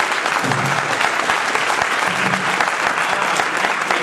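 Audience applauding steadily, a dense clatter of many hands clapping, with a voice or two faintly under it.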